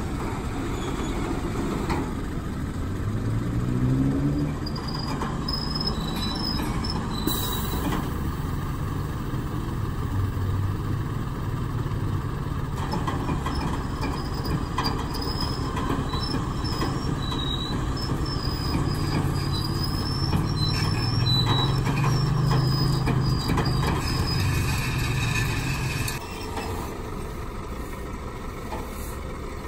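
Flatbed tow truck's engine running with a steady low hum that rises in pitch about three seconds in and drops away suddenly near the end, over general street traffic noise.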